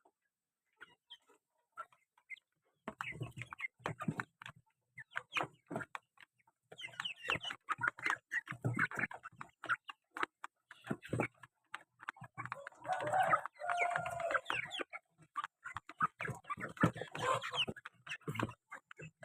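Domestic chickens clucking, mixed with many short clicks and knocks, after a nearly quiet first three seconds. A longer, fuller call comes about 13 seconds in and another near 17 seconds.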